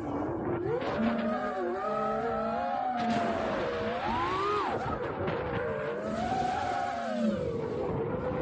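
Four brushless motors and 5-inch props of an FPV racing quad (XING-E 2207 1800KV motors) whining in flight. The pitch rises and falls with the throttle, with a sharp climb and drop about four and a half seconds in. Wind noise sits under the whine.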